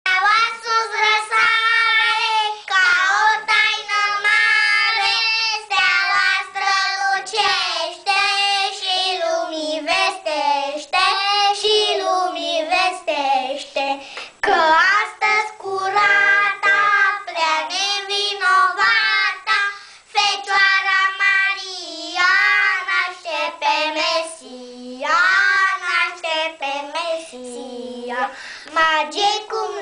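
Two young boys singing a Romanian Christmas carol (colindă), their voices carrying a melody with held notes and short breaks between lines.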